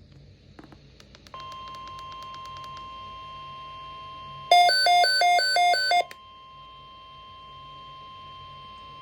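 NOAA Weather Radio warning alarm tone: a steady single high tone near 1 kHz that begins about a second in and holds, marking the start of an alert broadcast. About halfway through, a louder electronic beeping that switches back and forth between two pitches cuts in over it for about a second and a half.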